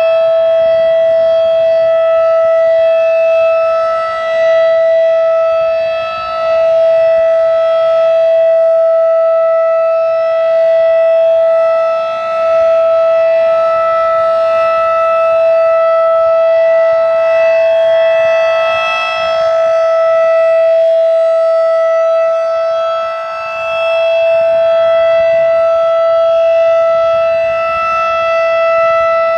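Federal Signal 2001-DC rotating outdoor warning siren sounding the steady Full Alert signal at full speed: one unwavering loud tone whose level swells and fades every few seconds as the rotating horn sweeps past.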